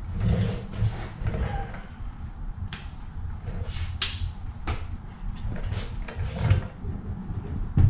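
A thin aluminium radiator grill screen and a plastic air duct being handled and pushed together, giving scattered clicks, clacks and scrapes over a steady low rumble. The sharpest clack comes about four seconds in.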